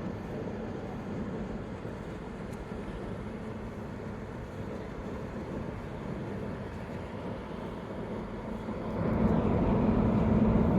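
Steady rumble of a Sado Kisen ferry under way, its engines humming under a noisy wash, getting clearly louder and heavier about nine seconds in as the ship turns out of port.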